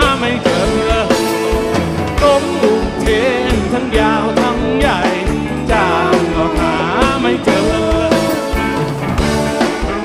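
Live rock band music: a lead line bending and sliding in pitch over a steady drum beat and bass.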